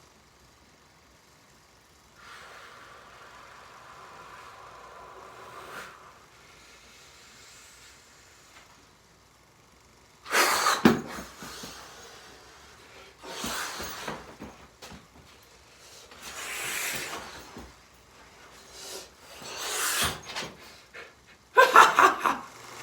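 A man's loud, wordless breaths and gasps, a series of breathy bursts about a second long each, coming after a quieter steady hiss.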